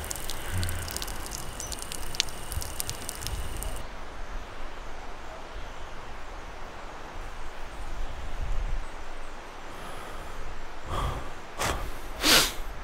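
Woodland outdoor ambience: a steady soft hiss with faint scattered clicks over the first few seconds, then a few brief rustles near the end.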